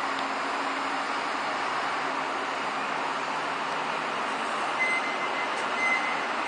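Irish Rail 29000-class diesel multiple unit rolling slowly into a station platform: a steady running rumble, with a thin high squeal from the wheels or brakes near the end.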